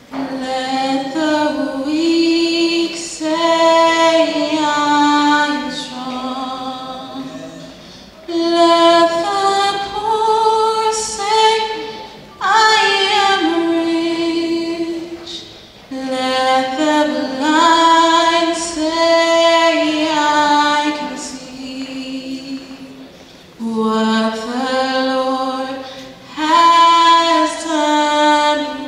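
Youth choir singing a gospel song unaccompanied, with a female lead voice on a microphone over the choir, in sung phrases a few seconds long with short breaths between them.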